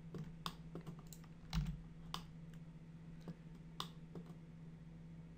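Scattered clicks of a computer keyboard and mouse, about a dozen at irregular intervals, over a faint steady electrical hum, with a soft thump about a second and a half in.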